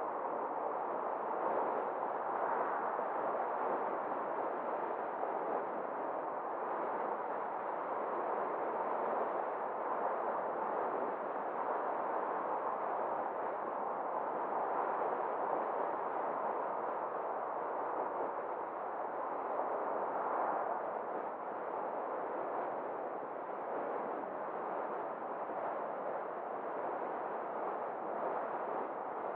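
Steady road and wind noise from a car driving along a street: an even, unbroken hiss with no distinct engine note or other events.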